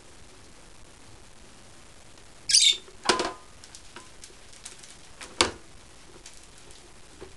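A Peacock MEP-22 stainless air pot being handled: a short hiss, then a sharp plastic click with a brief ring, a few light ticks, and another sharp click about two seconds later as the pot is gripped and turned by its top.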